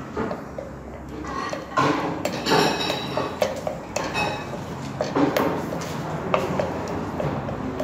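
Kitchen utensils knocking and clinking against pots and dishes in a quick, irregular string of sharp clinks, some with a short ring.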